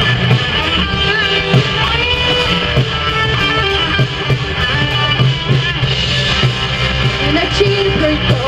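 Live rock band playing an instrumental passage, electric guitar to the fore over bass and drums.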